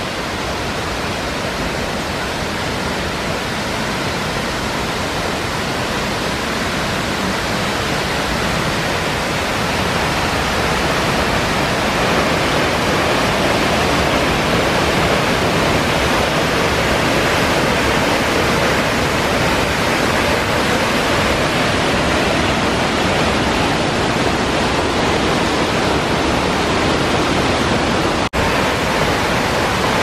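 Steady rush of a 70-metre waterfall, growing louder over the first dozen seconds and then holding level, with a momentary dropout near the end.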